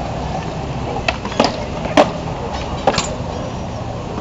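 Wheels rolling on skatepark concrete, with several sharp knocks and clacks from riding, the loudest about two seconds in.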